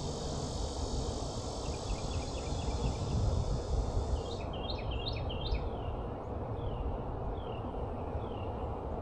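A high, steady insect drone that cuts off about four seconds in, followed by a bird's repeated short down-slurred chirps, all over a steady low rumble.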